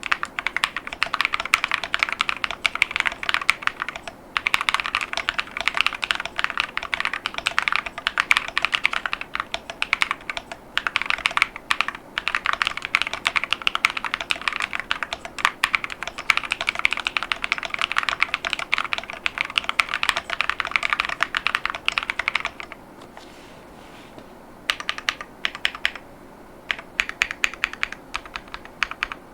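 Fast continuous typing on an Epomaker Tide75 Blue mechanical keyboard with Akko V3 Creamy Blue tactile switches and PBT MAO-profile keycaps: a dense run of keystroke clacks. There are brief pauses, and a longer one about two-thirds of the way through before the typing resumes.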